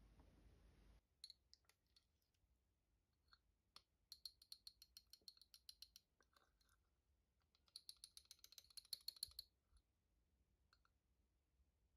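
Small wire whisk clicking rapidly against a ceramic cup while chocolate sauce is stirred: two faint runs of quick ticks, about ten a second, each lasting about two seconds and starting about four and eight seconds in. A soft pour of milk into a glass beaker cuts off about a second in.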